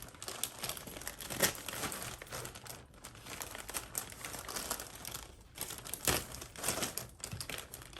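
Packaging crinkling and rustling as a package is handled and opened, in uneven bursts with a few sharper crackles.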